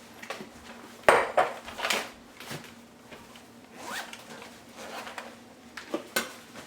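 Food being packed: a zip pulled and bags handled, with several sharp clacks of containers or dishes, a cluster about a second in and two more near the end.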